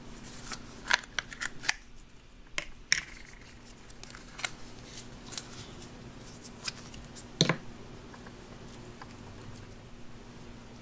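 Light plastic clicks and taps of hands handling a Play-Doh tub, pink dough and a plastic extruder tool, with a sharper plastic knock about two-thirds of the way through.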